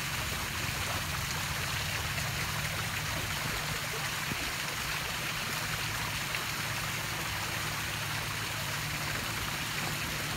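Steady rushing of water with a low, even hum underneath and no break or change.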